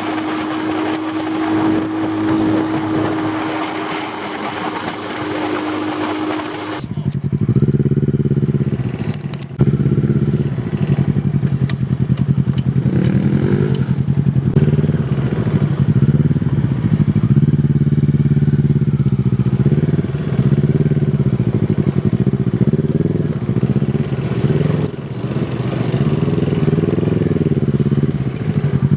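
Motorcycle engine running off-road, its note rising and falling as the throttle is opened and closed. About seven seconds in the sound changes abruptly, from a steady hum under hiss to the close, varying engine note.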